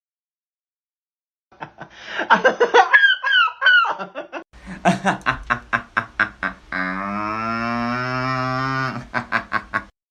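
A person laughing hard, in quick bursts of about five a second with a long drawn-out wavering sound in the middle, starting after about a second and a half of silence.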